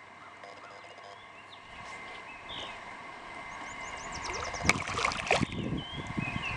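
A hooked fish, which the angler takes for a small muskellunge, swirls and splashes at the surface beside a kayak: a sharp knock about five seconds in, then a second or so of splashing. Birds chirp faintly before it.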